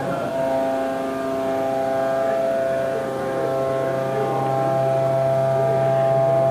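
Bridge-type (double-column) CNC machining center running: a steady whine of several tones, with a low hum that grows a little louder toward the end.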